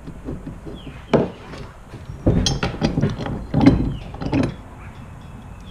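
Ratchet wrench clicking in quick strokes as it turns a bolt on a landing-gear mounting plate on a plastic kayak deck, in a dense run from about two to four and a half seconds in. A few separate knocks and clacks come before it.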